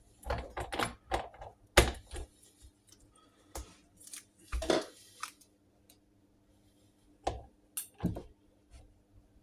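Irregular metallic clicks and knocks of a torque wrench and socket tightening the left-hand-threaded oil-pump worm-drive nut on a Norton Commando 850 crankshaft, with a sharp click about two seconds in.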